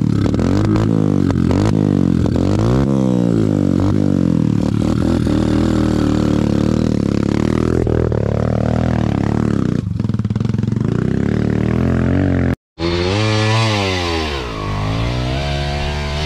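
Dirt bike engine running under throttle on a trail ride, its pitch rising and falling over and over as the rider works the throttle. The sound breaks off for a moment about twelve and a half seconds in, then resumes with wider revs.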